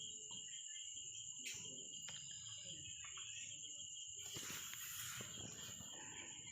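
Crickets trilling steadily in the background, with a few faint clicks and a brief rustle about four to five seconds in from spanner work on the gearbox nuts.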